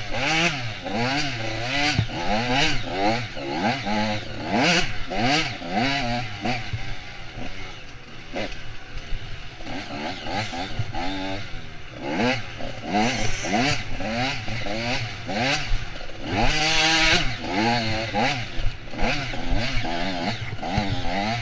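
Off-road dirt bike engine revving up and dropping back again and again, about once a second, as the throttle is worked on a rough trail, with clatter from the bike over the ground. One longer, harder rev comes about four seconds before the end.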